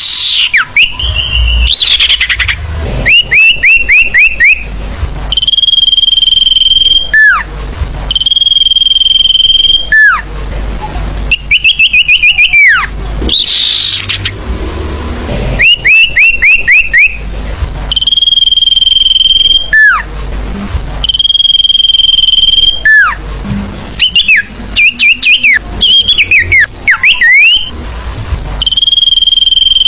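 Lure call of a sirfu, a small songbird: quick runs of four or five high chirps alternate with a long, steady high whistle that ends in a falling slur. The sequence repeats over and over at a loud level.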